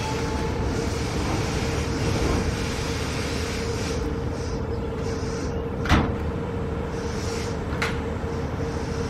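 Electric commuter train at a station platform, with a steady hum from its equipment over a low rumble. A sharp knock comes about six seconds in, and a lighter one near the end.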